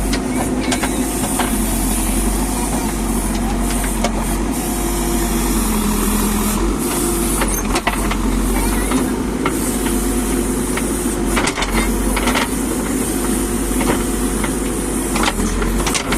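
JCB backhoe loader's diesel engine running steadily while digging, with scattered short knocks.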